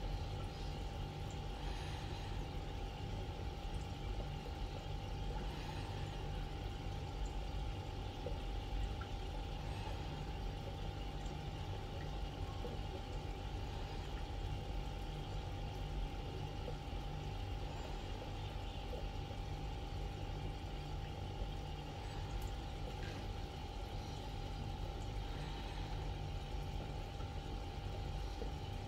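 Aquarium filter running: a steady low hum with a constant thin tone and a faint trickle of water.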